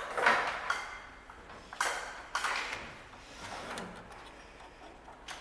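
Hands working a voltmeter gauge into its mounting hole in a riding mower's dash: a run of sharp clicks, knocks and short scrapes, thickest in the first couple of seconds.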